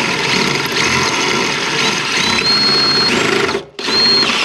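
Power drill running under load as it drills out a rivet in a steel attic-stair hinge, with a thin high squeal of the bit on the metal at times. The drill stops for a moment about three and a half seconds in, then starts again.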